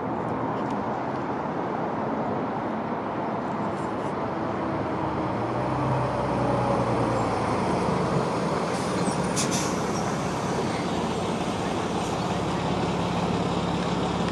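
Transit bus engine running as the bus moves through, over steady road traffic; its engine note grows louder and climbs slightly from about halfway through.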